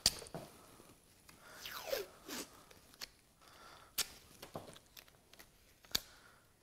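Painter's tape being pulled off the roll and wrapped around a trolling motor shaft: a zipper-like peel that falls in pitch about two seconds in, and a few sharp snaps of the tape being torn and handled, near the start, about four seconds in and near the end.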